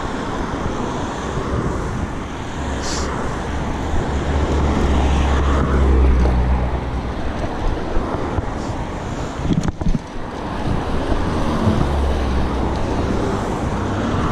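Wind buffeting the microphone of a moving bicycle, a steady rumbling rush, with road traffic going by underneath. A single sharp knock about ten seconds in.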